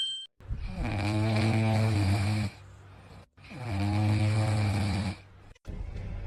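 A pet snoring: two long, low snores, each about two seconds, with a short pause between them.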